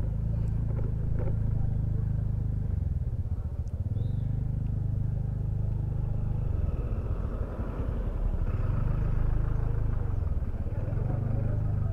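A motorcycle running along the road: a steady low engine and road rumble that eases off briefly a couple of times.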